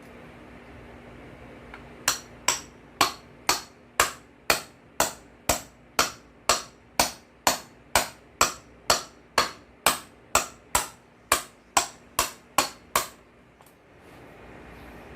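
A hammer striking metal in a steady rhythm of about two blows a second, roughly two dozen sharp ringing blows in all. The blows start about two seconds in and stop near the end.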